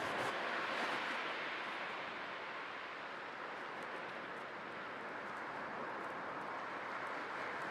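Sea waves washing onto a shore: a steady rush of surf that eases off in the middle and swells again near the end.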